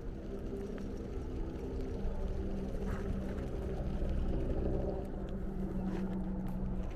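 A motor engine humming steadily, a little louder around the middle of the stretch, over a low rumble of wind and movement on the microphone.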